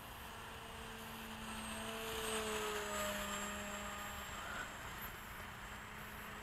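Skysurfer 1400 RC plane's electric motor and propeller droning faintly at a distance, swelling louder for a second or two as it passes, with its pitch sliding slightly down, then easing off.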